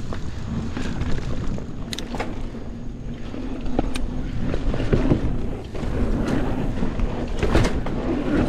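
Mountain bike rolling along a dirt trail: steady tyre rumble and wind on the microphone, with a few sharp knocks of the bike rattling over bumps.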